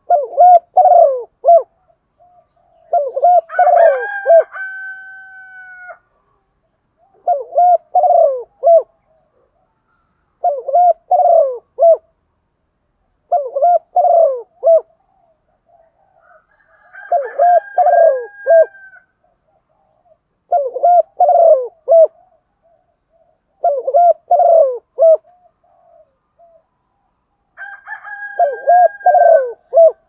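Female spotted dove cooing close by, the kind of call used to lure wild males: nine short phrases of low coos, one about every three seconds. Three of the phrases are overlapped by a long, steady, higher note.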